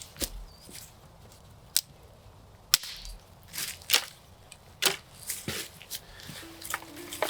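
Dry sticks and twigs snapping and cracking, a series of sharp irregular cracks while firewood is gathered on the forest floor. Soft music notes come in near the end.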